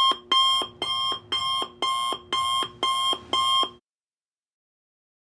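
Alarm-clock tone signalling the end of a countdown: about eight rapid electronic rings, roughly two a second. They stop abruptly about four seconds in.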